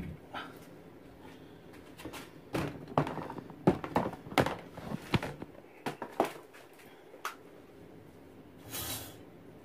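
Scattered knocks and clatters of household things being handled and set down, several in quick succession between about two and five seconds in, then a short rustle near the end.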